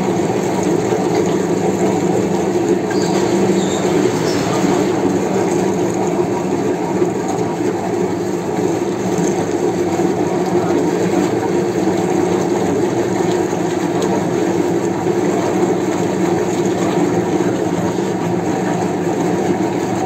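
An old meat mincer machine running steadily, a continuous mechanical rumble and hum as meat is ground through its plate.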